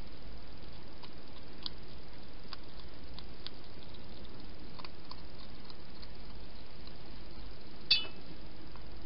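Hedgehog feeding at a shallow dish: faint scattered clicks from its mouth in the dish, and one sharp clink against the dish just before the end, over a steady hiss.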